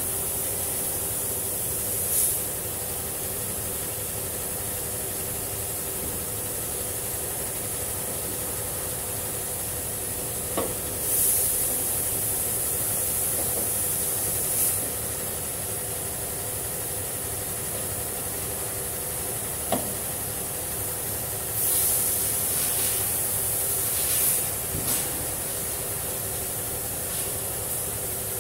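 Steady hum of factory machinery, broken every few seconds by short hisses of compressed air, about six in all, and two sharp clicks.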